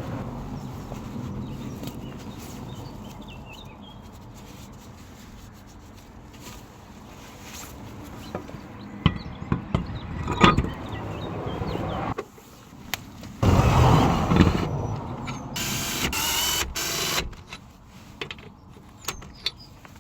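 Car repair work sounds: a string of metallic clicks and knocks, with a louder rush of noise about two-thirds of the way through and a short harsher burst after it.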